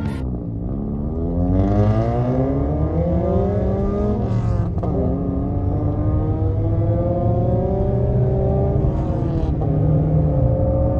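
Car engine accelerating hard through the gears: the revs climb for about four seconds, drop at an upshift, climb again and drop at a second shift near the end, over a steady road rumble.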